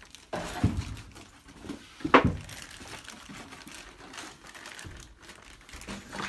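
Rustling and crinkling of paper and packaging with scattered knocks as flat-pack bookcase parts are handled, and a sharper, louder knock about two seconds in.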